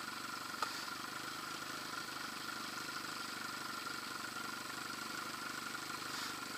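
Johnson 15 hp outboard motor running steadily at low throttle, with a faint click about half a second in.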